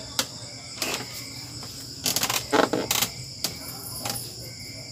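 A steady chirring chorus of crickets, broken by a series of knocks and creaks from a padded wooden exercise bench as a man sits down on it. The knocks come thickest and loudest about two to three seconds in.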